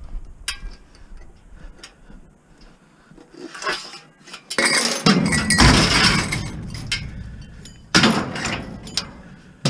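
Scrap metal being handled and loaded, with a few light clinks at first, then loud clattering and scraping about halfway through and again near the end.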